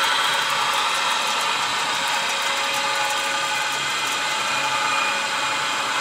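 Electric motor and gear drive of a Swinger (Tide Tamer) jet ski lift, running with a steady whine as it lowers the lift. It runs very smoothly, the sign that the new housing and cable winder are working.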